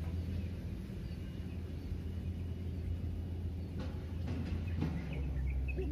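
Outdoor ambience: a steady low rumble with faint, scattered bird chirps and a couple of soft clicks.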